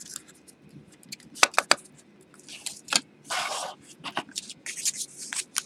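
Small cardboard boxes handled on a tabletop: a series of sharp taps and clicks as lids come off and boxes are set down, with a brief scraping slide of cardboard about three and a half seconds in.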